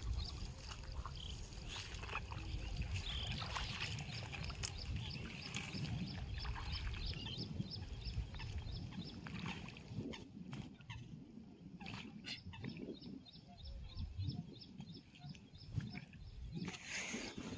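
Outdoor ambience: wind rumbling on the microphone, with a high chirp repeated about three times a second that fades out about ten seconds in, and a few scattered calls.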